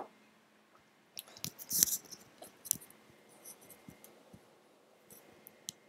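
Scattered small clicks in a quiet room, with a soft knock at the very start and a brief rustle about two seconds in.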